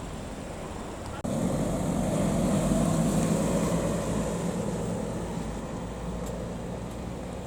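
A vehicle drives past close by with no siren. Its engine and road noise start abruptly about a second in, peak, then fade slowly over the traffic rumble.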